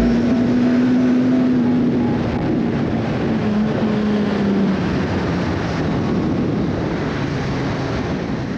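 Suzuki GSX-R1000R's inline four-cylinder engine running while riding, heard with wind and road noise. Its pitch drops a little midway and the sound slowly fades, as when the bike eases off and slows.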